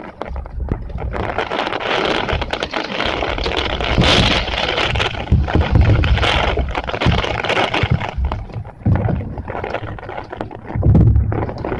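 Typhoon rainstorm: a loud, unsteady rush of rain and gusting wind, with wind buffeting the microphone in heavy low rumbles as the gusts rise and fall.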